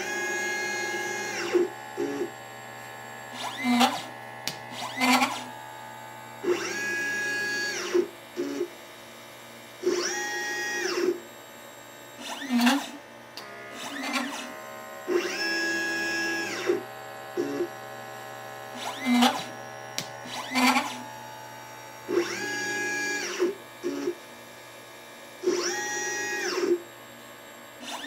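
LitePlacer pick-and-place machine's stepper-driven head making repeated moves while placing parts: each move is a whine that rises in pitch, holds, and falls as the head speeds up and stops, with short lower buzzes between the moves.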